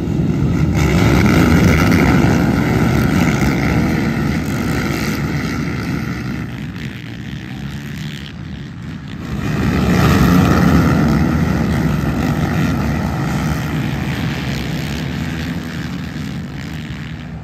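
A pack of race quads leaving the start line at full throttle, many engines running together in one dense drone. It eases off about eight seconds in, then swells again about ten seconds in as the pack comes past close by.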